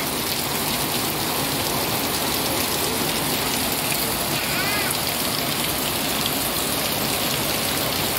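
Heavy downpour pelting a concrete yard, a steady, even hiss of rain.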